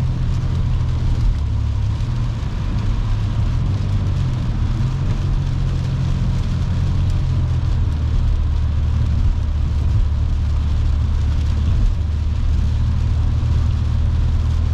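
Steady road noise inside a car's cabin at highway speed on a wet interstate: a low drone from tyres and engine, with the hiss of tyres running through water on the road.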